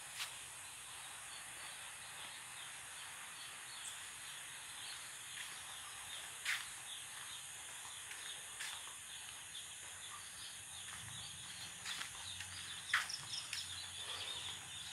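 A crowd of day-old chicks peeping, a dense scatter of short high cheeps that thickens near the end, with a few sharp knocks.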